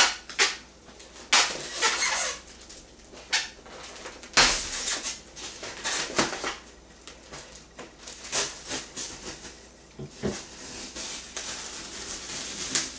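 Styrofoam packing block being handled and pried at, squeaking and creaking, with irregular scrapes, rubs and sharp clicks.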